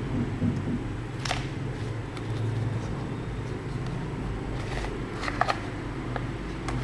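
Plastic Play-Doh toys and tools being handled: a few light clicks and taps, one about a second in and a quick cluster near the end, over a steady low hum.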